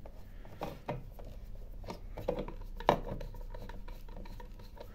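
Screwdriver turning screws out of a plastic battery-charger housing: faint scraping and rubbing with a few light clicks, the sharpest about three seconds in.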